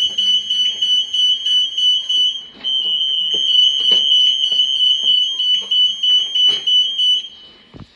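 Alarm of an acoustomagnetic (AM) EAS anti-theft gate going off at a tagged item: a loud, steady, high-pitched electronic tone. It breaks off briefly about two and a half seconds in and stops near the end, with light knocks and clicks underneath.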